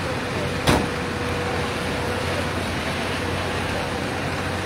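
Steady rumble of fire-truck engines running their water pumps, with a faint steady hum, and one sharp knock just under a second in.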